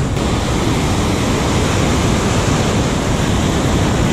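Ocean surf breaking and washing over rocks: a steady, loud rush of water.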